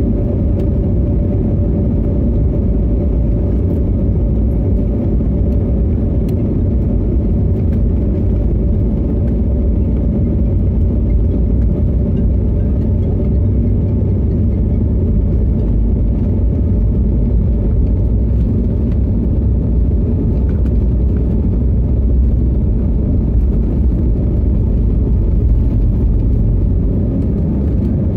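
Jet airliner's engines and rolling rumble heard from inside the passenger cabin as the aircraft taxis onto the runway and makes its take-off roll. A steady, loud, low rumble that swells slightly in the last third.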